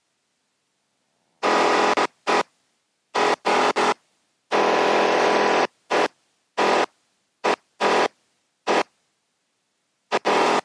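About a dozen short bursts of engine and cabin noise from a Flight Design CTSW's Rotax 912 through the headset intercom, each switched on and cut off abruptly to dead silence, the longest about a second: the intercom's voice-activated mic gate opening and closing on the cabin noise.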